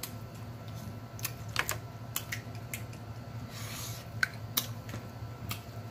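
Snow crab legs being cracked and picked apart by hand, giving scattered short sharp clicks and snaps, mixed with the mouth sounds of eating, over a low steady hum.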